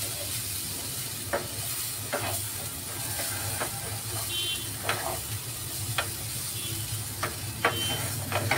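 Wooden spatula stirring corn and shredded chicken in a pan, with irregular scrapes and knocks against the pan, over a steady sizzle from the butter-fried mixture. A low steady hum runs underneath.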